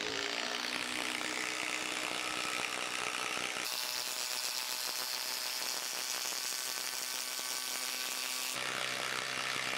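Milwaukee M12 Fuel impact driver running continuously under load, driving a long screw into a tough wood round. The sound jumps higher in pitch for a sped-up stretch from about a third of the way in until near the end.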